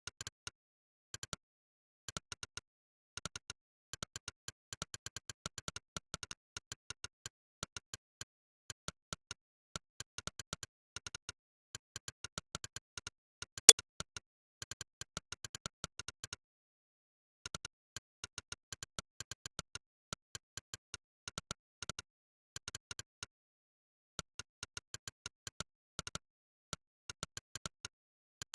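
Monkeytype's synthesized 'click' keypress sound, one short click per keystroke, in quick runs of typing broken by brief pauses, with dead silence between clicks. One click about halfway through is much louder than the rest.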